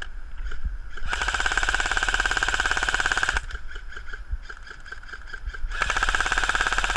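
G&P Stoner 63 airsoft electric gun firing long full-auto bursts, a fast even rattle of shots with a steady motor whine. One long burst starts about a second in and runs a couple of seconds, then fainter, slower firing, then another long burst near the end.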